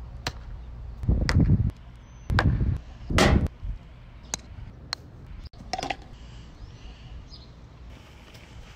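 A golf club swung through the air several times: three loud whooshes in quick succession, with a few sharp clicks.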